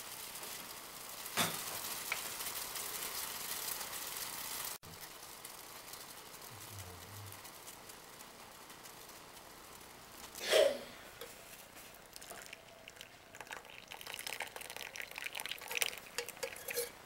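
Tea water boiling in a pan with a steady hiss, cut off abruptly about five seconds in. Near the end come quick metal-and-crockery clinks as a spoon, pan and cup are handled.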